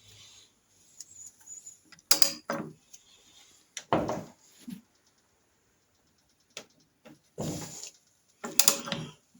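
About half a dozen metallic knocks and clanks, some in pairs, from working a sprocket puller on a Norton Commando engine's crankshaft sprocket. The sprocket is stuck fast and won't come off.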